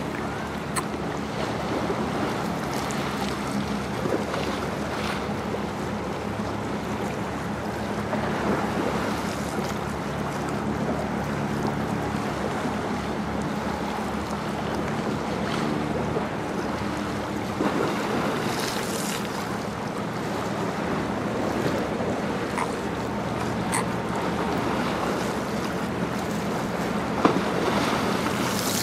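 Wind buffeting the microphone and lake water lapping against a stone breakwall, under a steady low hum from a passing Great Lakes bulk freighter's engines.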